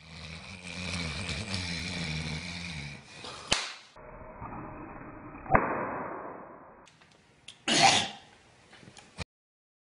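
A man snoring for about three seconds, then two sharp impacts about two seconds apart, and a short loud burst of noise near the end.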